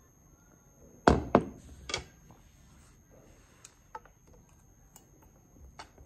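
Tableware on a table: three loud clunks and clinks about a second in, from the glass bottle and dishes being handled, then a few light clicks of a metal spoon against a plate while eating.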